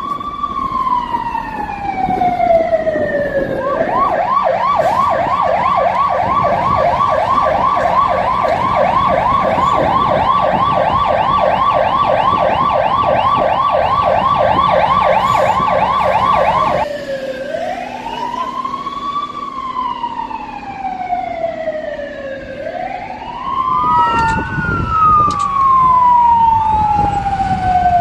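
Electronic emergency-vehicle sirens. A slow wail rises and falls, switches about four seconds in to a fast yelp for some thirteen seconds, then goes back to the slow wail. Near the end a second siren joins, wailing out of step with the first.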